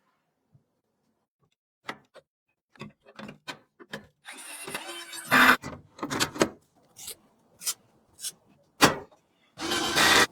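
PC parts being handled and fitted together: a string of light clicks and knocks, two longer sliding scrapes, and a couple of sharper knocks, one about halfway through and one near the end.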